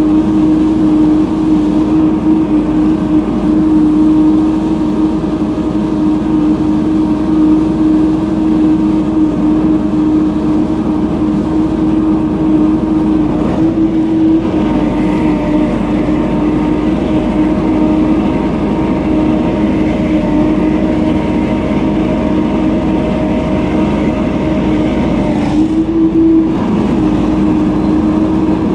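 Leaf blower running steadily at high throttle: a loud, constant engine drone with the rush of air, its pitch briefly rising twice.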